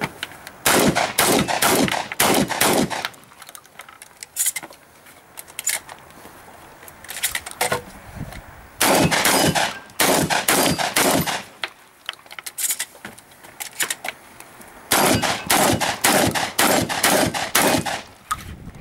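Shotgun fire in quick strings of about half a dozen shots, roughly three to four a second, with a few single shots in the gaps between the strings.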